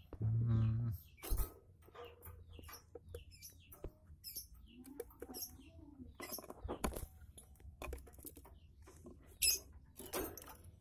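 Parrot chicks in a nest box giving short, scattered squeaks and chirps, mixed with small clicks and scratches from the nest litter.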